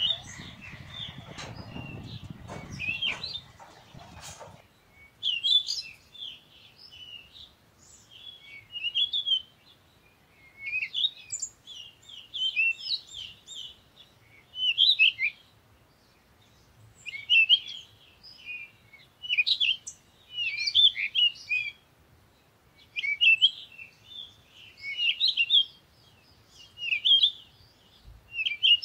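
Small birds chirping and twittering in short high-pitched phrases that recur about every two seconds. A low, noisy sound with a few clicks sits under the first four seconds.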